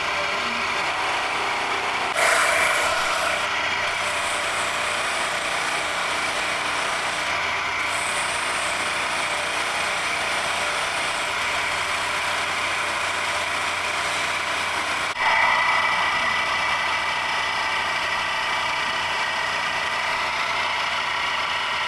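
Buffing wheel on a motor-driven shaft running steadily while a knife is polished against it, with a rubbing hiss. The hiss swells sharply about two seconds in and again about fifteen seconds in, then eases off each time.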